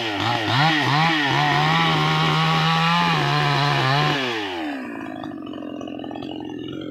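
Two-stroke chainsaw revved in several quick blips, then held at full throttle for about three seconds before dropping back to idle a little after four seconds in.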